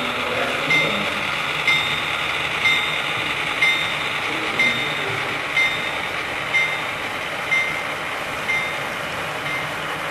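HO-scale diesel locomotive consist running along the model layout: a steady running noise, with a short high tone repeating about once a second.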